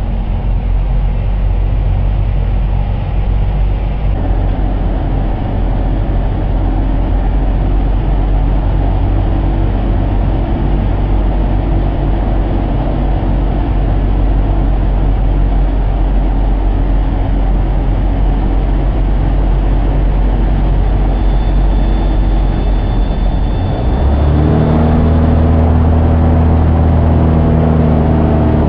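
Light aircraft's engine and propeller running with rushing airflow, heard from inside the cockpit during a steep spiral. About 24 seconds in, the engine note gets louder and its pitch much more distinct.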